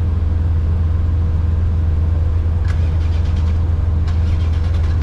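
Car engine running steadily with a deep, even drone that does not rise or fall. There is a sharp click about halfway through and a short run of faint ticks near the end.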